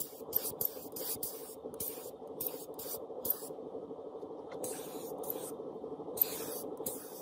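Air spray gun spraying paint in short, rapid bursts of hiss, several a second. After a pause near the middle come longer bursts toward the end, over a steady low hum.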